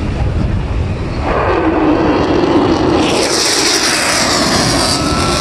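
A fighter jet's engine passing close overhead. The jet roar swells about a second in, then turns louder and harsher from about three seconds in as the jet banks hard.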